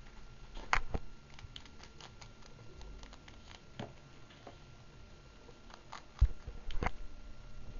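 Guinea pig and a hand moving on fleece cage bedding: scattered light clicks and ticks, with a soft low thump about six seconds in and a sharper click just after.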